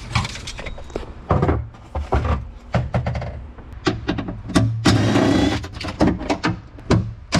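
Irregular knocks, clicks and thunks of hand work on car parts, with a noisier scraping stretch about five seconds in.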